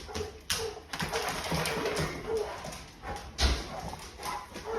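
A dog making a string of short, soft sounds, with two sharp knocks, one about half a second in and one a little after three seconds.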